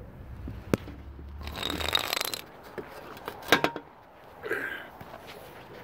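Handling noise as a metal exhaust piece is picked up and carried: a sharp click, a scraping rustle, then a quick clatter of knocks and a shorter rustle. A low rumble in the background stops about two seconds in.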